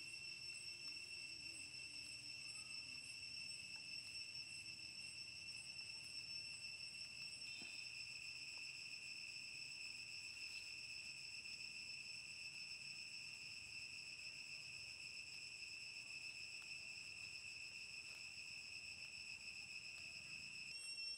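Insects calling in a steady high-pitched drone that keeps on without a break.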